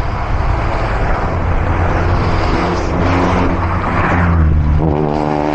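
A car passing close alongside a moving bicycle, its engine note rising near the end, over a steady low rumble of wind on the handlebar-mounted camera's microphone.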